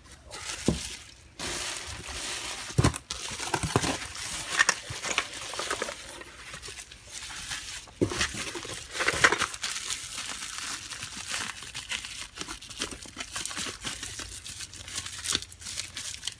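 Packing material crumpling and rustling as a wrapped item is unpacked by hand, with scattered clicks and a few light knocks.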